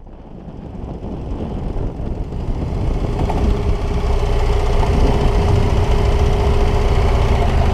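BMW F800 GS motorcycle's parallel-twin engine running with a steady low rumble, fading in from silence and growing louder over the first few seconds.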